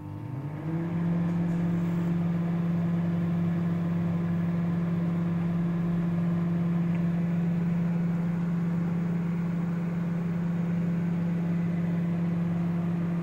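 Candy CMXG20DR microwave oven running on its 30-second express start: a steady low hum that builds up within about the first second, then holds unchanged.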